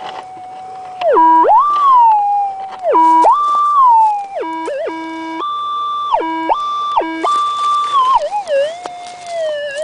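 Metal detector's audio tone warbling and jumping back and forth between a low and a high pitch several times, then gliding up and down near the end, as the coil is swept over loose dug soil: the detector signalling the gold nugget in it.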